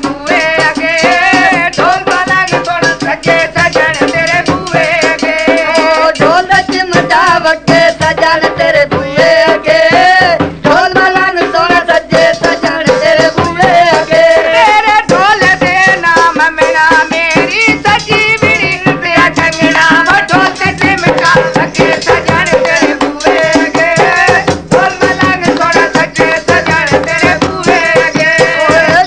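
Punjabi folk song in the mahiya style: a sung melody over dhol drum and chimta (jingling iron tongs) percussion.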